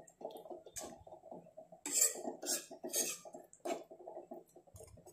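Metal spoon stirring quail gravy in a nonstick kadai: wet stirring and sloshing of the liquid, with several louder scrapes of the spoon against the pan in the middle.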